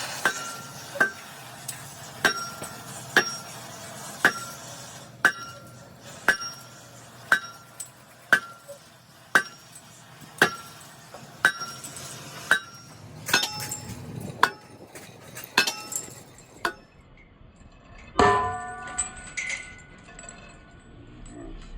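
A hammer striking steel, about one blow a second, each blow ringing briefly; the blows turn irregular past the halfway point, and a different metallic clatter starts near the end.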